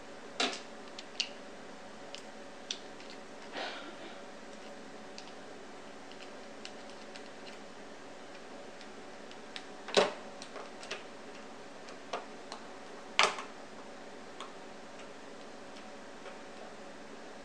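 Small metal parts being worked by hand as a clicker's bead-chain end piece is pried open: scattered sharp clicks and taps, the two loudest about ten and thirteen seconds in, over a faint steady hum.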